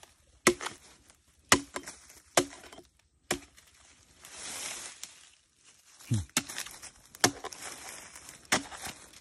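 Machete blade chopping into a bamboo shoot: about eight sharp strokes at irregular intervals, with a longer scraping noise near the middle. The shoot is being split open to search for bamboo caterpillars inside.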